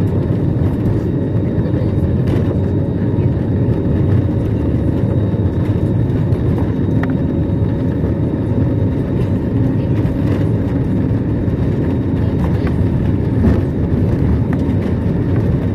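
Cabin noise of an Airbus A320-216 rolling along the runway on the ground, heard from a window seat over the wing: a steady low rumble of the CFM56 jet engines and the airframe, with a few light knocks from the wheels.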